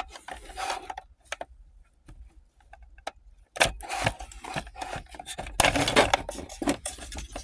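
Hands working plastic trim and wiring connectors: rubbing, rustling and scattered clicks, with two busier spells of scraping about three and a half and five and a half seconds in.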